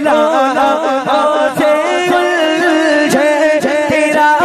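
A male devotional singer singing a line of an Urdu manqabat in long, ornamented phrases over a steady held drone note.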